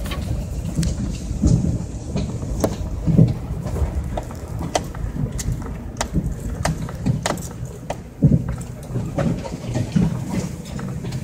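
A truck driving slowly over a rough, rutted dirt track, heard from inside the cab: a steady low rumble with frequent sharp knocks and rattles and a few heavier thumps as it bounces over the ruts.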